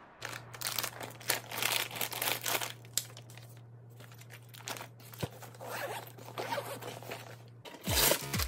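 Handling noise from packing an insulated lunch bag: a run of rustles, scrapes and crinkles from the bag's fabric and zipper, a plastic lunch box and a snack wrapper, over a steady low hum.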